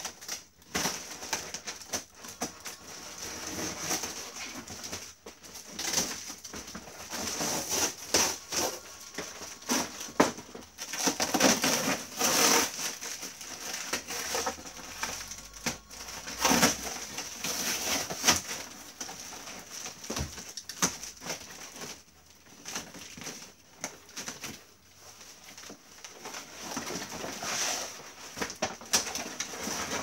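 Cardboard boxes being torn open by hand: packing tape ripped, cardboard flaps pulled and crumpled, plastic wrapping and packing paper rustled, in irregular bursts over a faint steady high-pitched whine.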